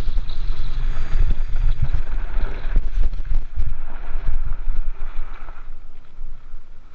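Mountain cart's wheels rolling fast down a gravel track, a rough rumble and rattle mixed with wind buffeting the microphone, muffled by the GoPro's waterproof housing. It gets quieter about six seconds in.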